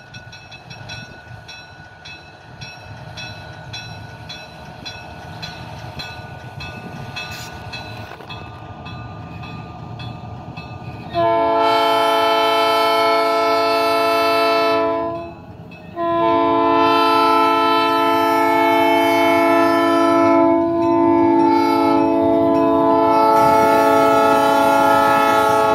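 Diesel switcher locomotive approaching with its engine running and growing steadily louder, then sounding its multi-tone air horn: a long blast about eleven seconds in, a short gap, and a second blast held for about ten seconds as it passes close by. The blasts are a warning for the road crossing just ahead.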